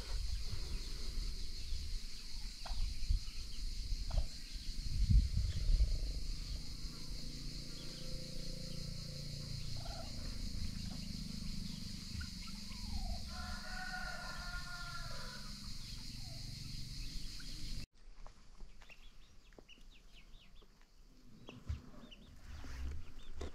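Free-range chickens calling and clucking, with one longer pitched call about halfway through. A loud low rumble about five seconds in, and the background noise drops suddenly about three-quarters of the way through.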